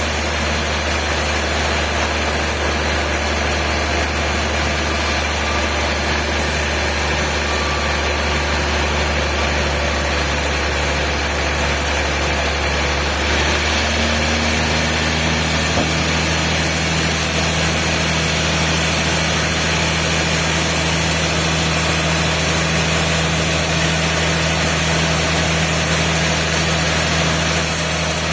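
Sawmill machinery running steadily: a constant low engine or motor hum under a dense hiss, its low tone shifting slightly about halfway through.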